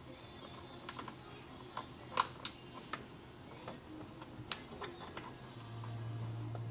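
Faint, scattered small plastic clicks and ticks as hands fasten a zip tie around speaker wire. A low steady hum comes on near the end.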